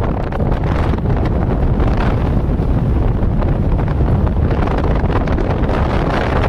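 Wind rushing and buffeting the microphone at the open window of a moving truck, a loud, steady rush heaviest in the low end.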